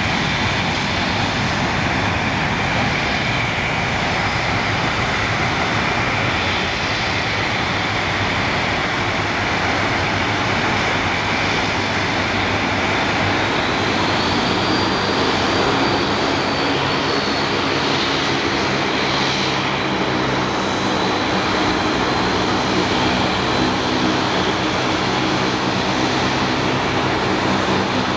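Boeing 767-300F freighter's twin General Electric CF6 turbofans at takeoff power as it climbs away, a steady jet noise with a thin high whine over it. Low droning tones join in about halfway through.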